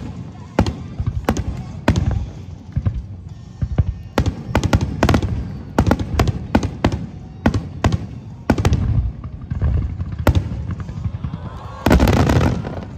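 Aerial fireworks shells bursting one after another, sharp booms with crackling, building to a dense, loud volley near the end.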